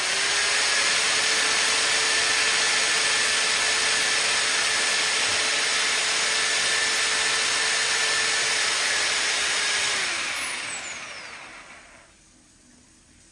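Power drain-cleaning machine's electric motor running steadily with a loud hiss and a steady hum. About ten seconds in it is switched off and winds down, its pitch falling as it fades.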